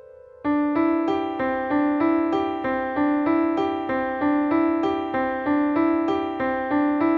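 Piano playing a single-line melody with one hand: a held note dies away, then about half a second in the playing resumes with a steady run of notes, about three a second.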